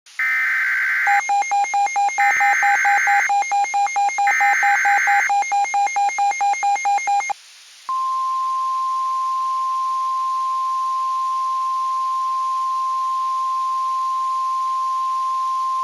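Emergency Alert System SAME header: three warbling data-tone bursts about a second each, with rapid beeping pulsing over them. After a short break, the steady single-pitched 1050 Hz weather radio warning alarm tone begins, the signal that leads into a tornado emergency message.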